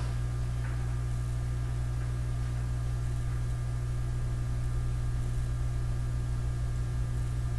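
Steady low electrical mains hum, with a few faint steady higher tones above it and a couple of faint soft ticks.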